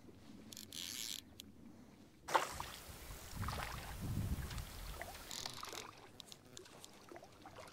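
Faint water sloshing and lapping, with a sharp click about two seconds in and a few light ticks.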